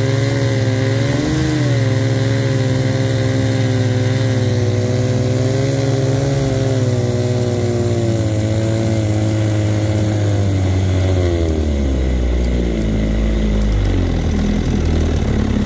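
1964 Johnson 9.5 hp two-stroke outboard running steadily with its engine cover off, revving up briefly about a second in. It is then throttled back at the tiller twist grip, so its speed sinks from about eight seconds in and settles to a slow idle near the end.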